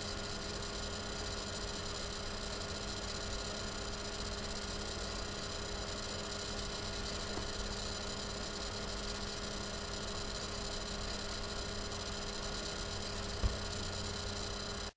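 Steady electrical mains hum and buzz in the recording, made of several fixed tones over a hiss, with one brief low thump near the end.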